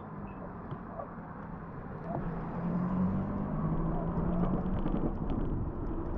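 Steady rumble of a bicycle ride picked up by the camera's microphone, getting louder about two seconds in.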